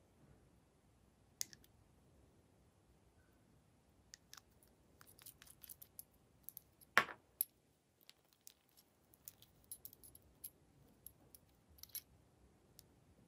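Small clicks and light clinks of glass nail polish bottles and their round caps being handled and twisted open. The clicks come in scattered clusters, the sharpest about halfway through.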